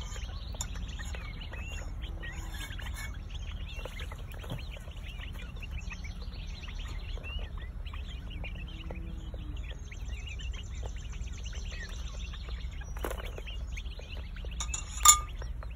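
Young northern bobwhite quail chirping and peeping constantly as they feed, many short calls overlapping, over a low steady rumble. A sharp knock sounds once near the end.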